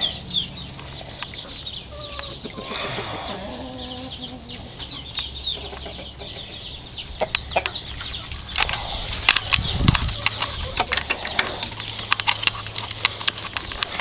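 Bantam chickens clucking and chirping, with many short high chirps all through. A run of sharp clicks and flutters comes in from about halfway.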